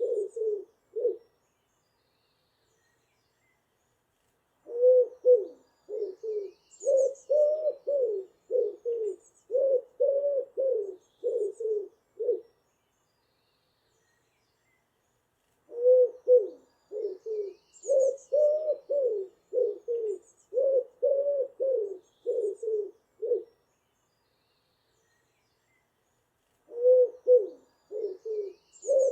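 A pigeon cooing in runs of about a dozen quick, low coos, each run lasting around eight seconds, with pauses of about three seconds between them. Faint high chirps of other birds sound now and then.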